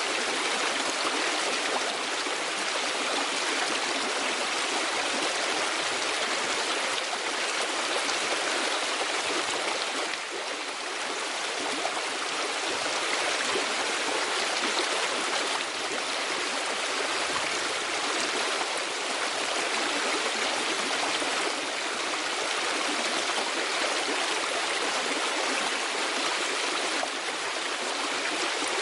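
Steady rushing of running water, an even hiss with no break and little low rumble.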